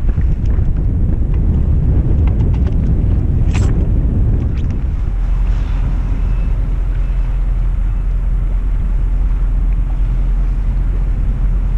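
Wind rumbling on the microphone, with a few sharp clicks and knocks of the boathook and mooring gear in the first five seconds. After that a steadier low drone takes over, the yacht's engine as it motors slowly under bare poles.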